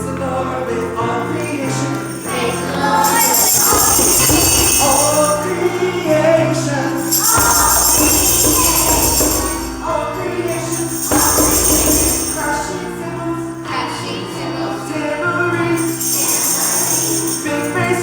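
Children's choir singing a praise song with instrumental accompaniment, with spells of jingling percussion shaken in time, four times.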